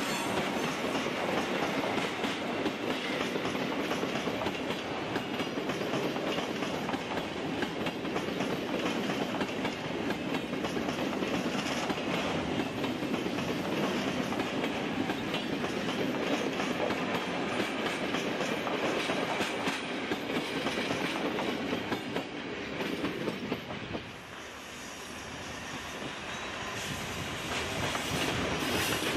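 Netherlands Railways passenger coaches rolling past behind an electric locomotive, the wheels clattering steadily over rail joints. About 24 s in the sound drops away suddenly, then grows louder again as an electric multiple unit approaches.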